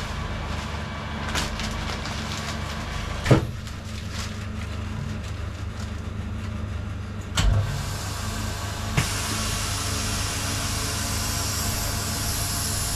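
Chamber vacuum sealer's pump running with a steady low hum while fish is vacuum-packed. Sharp knocks come about three and seven and a half seconds in as the machine's lid is handled, and from about nine seconds a steady hiss joins.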